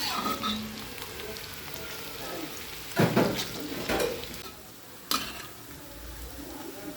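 Chopped onions frying in hot oil in a karahi, a steady sizzle, being stirred, with a couple of louder stirring strokes around the middle and a short sharp knock soon after, as they cook toward golden brown.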